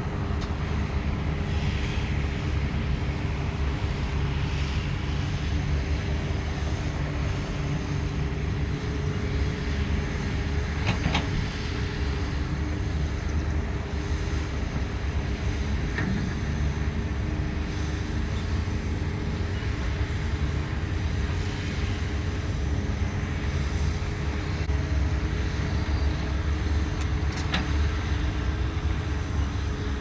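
Heavy earthmoving machine's diesel engine running steadily under work, with a few sharp knocks spread through.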